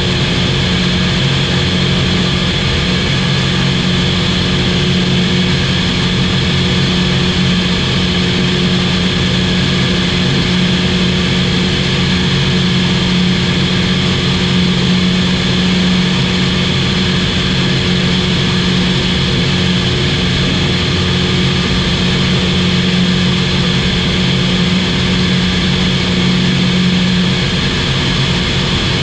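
Steady drone of a Czech SportCruiser light aircraft's Rotax 912 engine and propeller in flight. One of its low tones fades slightly near the end.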